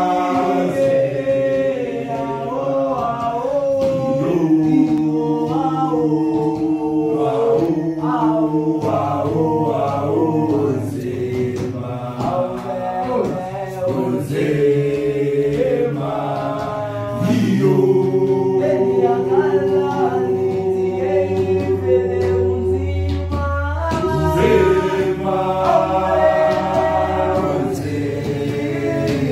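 A group of men singing a gwijo, a South African group chant song, a cappella in several-part harmony. A low held bass line joins about nine seconds in.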